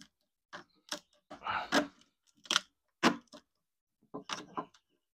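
Duct-taped plastic pipe being twisted and worked into a snug fit, giving a string of about eight short crackles and clicks of tape and plastic.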